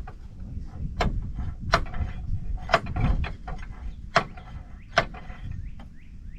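Five metal-on-metal hammer strikes, spaced unevenly about a second apart, each with a short ring: hammering on a punch to drive the broken master pin out of a Kobelco SK250 excavator's steel track.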